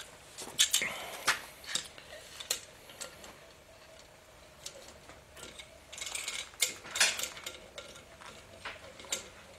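Scattered metallic clinks and knocks as an OTC 4572 valve spring compressor is handled and fitted onto a Willys F-head cylinder head on a steel workbench, setting up to compress an intake valve spring. There are several sharp clicks in the first couple of seconds and a cluster about six to seven seconds in.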